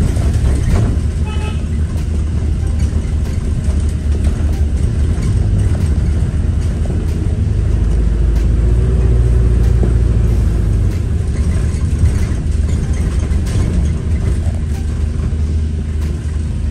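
Engine and road rumble inside a moving London bus: a deep, steady drone that grows louder for a few seconds in the middle.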